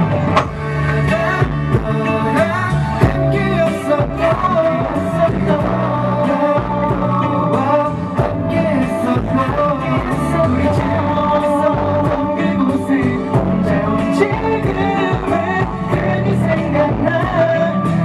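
Male pop vocal group singing live into handheld microphones over an instrumental backing track, amplified for a small outdoor stage.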